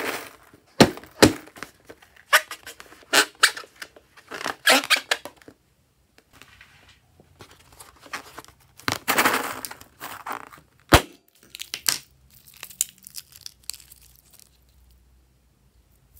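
Hands handling and squeezing a rubber balloon over a tray of foamy slime: irregular stretches of crinkling, rubbing rustle with a few sharp clicks, quieter near the end.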